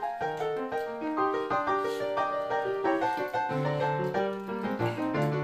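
Background piano music: a quick, steady stream of short notes, with lower bass notes joining about three and a half seconds in.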